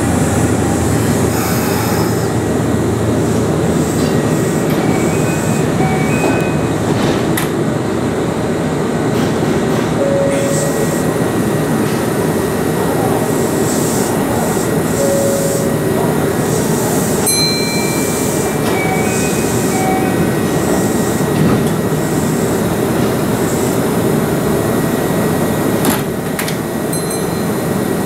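Steady rumble and hum of electric trains at a station platform, with a Kintetsu 1233-series local standing there. A few short high electronic tones sound about two-thirds of the way through.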